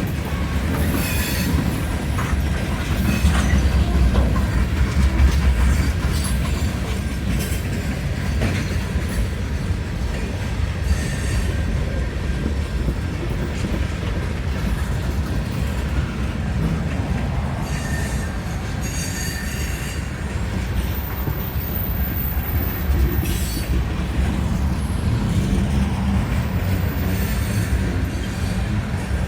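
Train rolling past on the rails: a steady low rumble of wheels on track, with scattered clicks from rail joints and brief, thin high-pitched wheel squeals.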